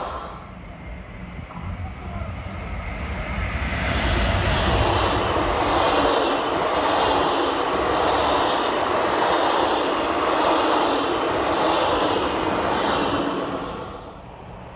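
Transilien double-deck electric commuter train running past close by. Its noise builds over the first few seconds, holds loud with a repeating beat about once a second, and drops away near the end.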